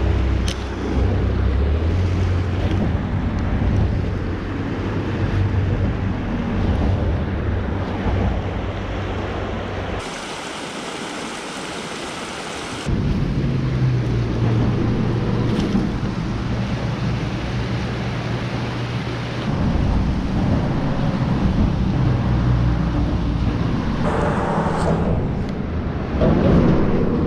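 Creek water rushing over a small spillway and through shallow riffles: a steady hiss of moving water with a deep rumble under it. The rumble drops out for a few seconds near the middle, leaving only the hiss.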